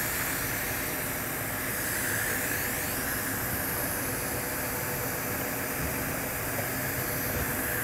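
TIG welding arc at about 80 amps from a Miller XMT 350, laying a tack weld on a steel pipe flange: a steady, even hiss.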